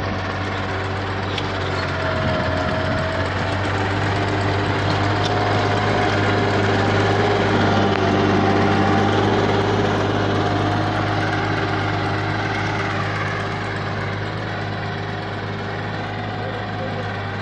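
Captain 28 HP four-wheel-drive compact tractor's Mitsubishi diesel engine running steadily under load as it pulls a mouldboard plough through soil. It grows somewhat louder toward the middle and eases off again near the end.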